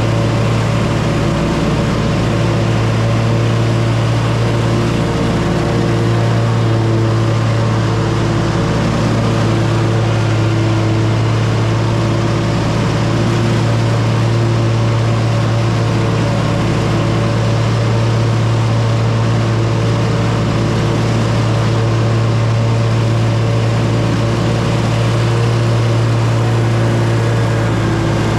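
Riding lawn mower engine running steadily at a constant speed, with a deep even hum.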